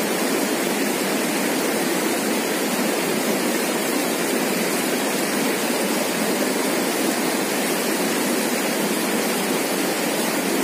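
Swift river rushing over rocks and rapids: a steady, unbroken rush of water.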